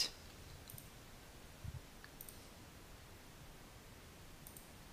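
A few faint computer mouse clicks, about three spread across the seconds, over quiet room tone, with a soft low thump near the middle.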